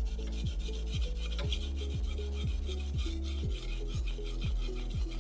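Steel knife blade rubbed back and forth on a wet whetstone in repeated sharpening strokes, a steady gritty scraping. Background music with a steady beat of about two thumps a second plays under it.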